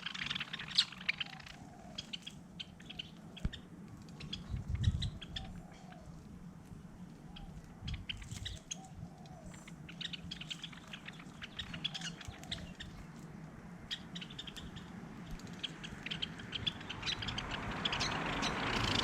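Small birds chirping and twittering around a bird feeder, with short high chirps throughout and a lower call every few seconds. A rushing noise swells near the end.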